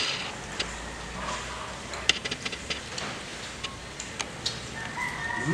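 Sparse small clicks and smacks of eating by hand: chewing and picking meat off a piece of fermented duck on the bone. A brief pitched sound comes in right at the end.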